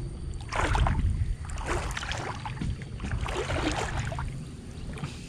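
Shallow pond water swishing and splashing three times, a little over a second apart, as water spinach vines are pulled through it, over a steady low rumble.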